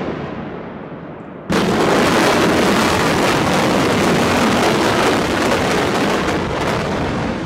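High-rise building implosion: the explosive demolition charges go off all at once about a second and a half in, and a dense crackling noise carries on as the tower collapses.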